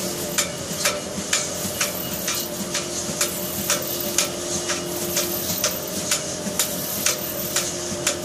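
SAVEMA friction feeder and conveyor belt running, feeding flat packaging items one by one. A sharp click comes about twice a second over a steady machine hum.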